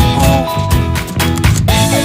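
Upbeat background music with a steady beat, bass line and a sliding lead melody.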